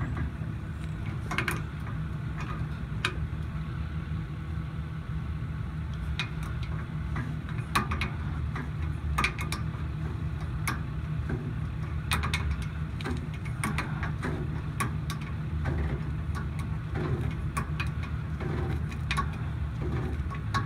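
Adjustable wrench clicking and clinking on the cage-bolt nut of an air brake spring chamber as it is turned in short strokes, caging the spring brake, over the steady low rumble of an idling truck engine.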